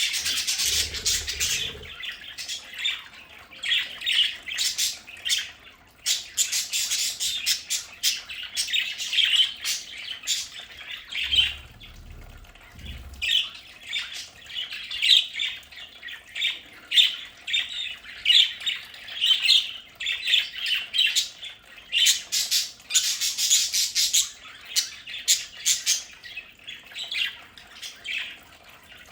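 A flock of budgerigars chattering and squawking continuously, rapid high chirps overlapping one another.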